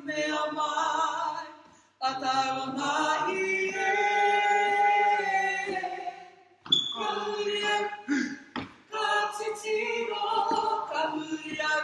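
A small mixed group of women's and men's voices singing a Māori action song together, unaccompanied, in phrases with short breaks between them.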